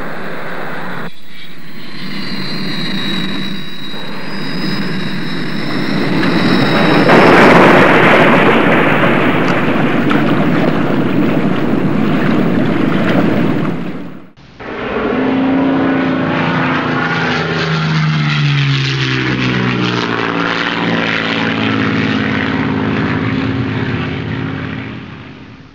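Jet aircraft engine noise at a carrier launch: a steady rush with a thin high whine, swelling about seven seconds in. It cuts off abruptly about halfway through and gives way to another stretch of engine noise whose pitch slides downward, fading at the end.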